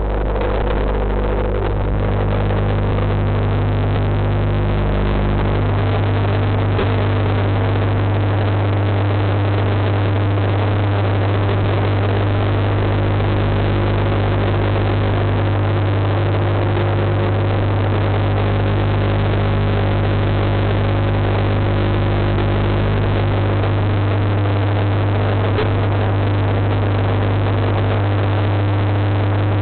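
Steady low mechanical hum with a constant hiss over it, heard through the water by a microphone submerged in a goldfish tank, as made by the aquarium's pump running.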